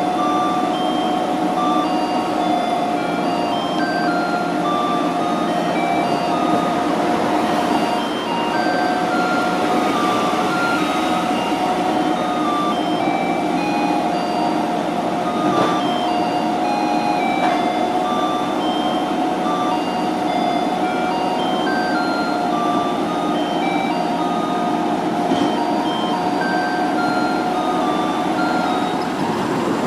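Garbage truck's roof loudspeaker playing an electronic chime melody, short notes at changing pitches over a steady tone, with the truck's engine running low underneath as it moves slowly.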